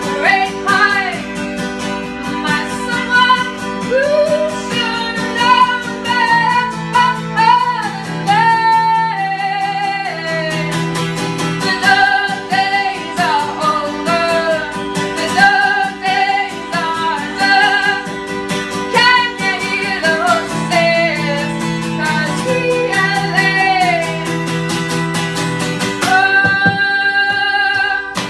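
A woman singing live to a strummed steel-string acoustic guitar, her voice carrying the melody over steady chords, with a long held note near the end.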